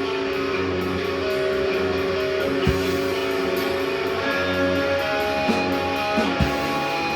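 Guitar music: held notes with occasional short plucked hits.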